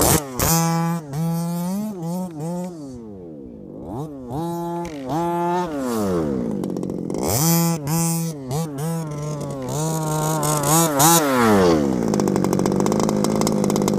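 HPI Baja 5B's two-stroke petrol engine revving hard and coming off the throttle again and again, its pitch rising and falling in quick sweeps as the 1/5-scale RC buggy is driven about. About twelve seconds in it drops and holds a steady, even note.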